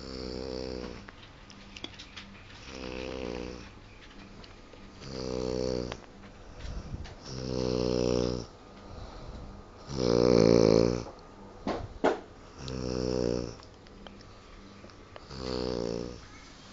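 A sleeping man snoring heavily, with one snore about every two and a half seconds, seven in all. The loudest snore comes about ten seconds in.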